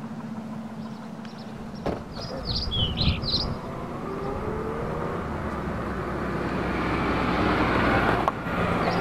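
A small car driving up a street toward the listener, its engine and tyre noise growing steadily louder as it approaches, then cut off suddenly near the end. A few birds chirp briefly about three seconds in.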